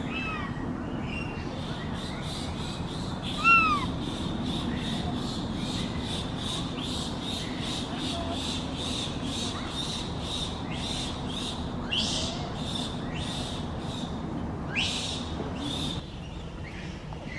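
Japanese macaques giving short arching coo calls that rise and fall in pitch, the loudest about three and a half seconds in. Under them runs a rhythmic high chirping, about two to three a second, over a steady low background.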